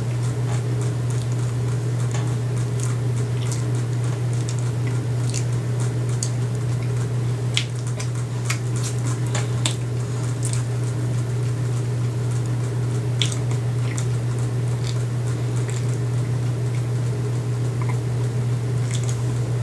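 A mouthful of soft, frosted snack cake being chewed, with wet squishing and many scattered short clicks, over a steady low hum.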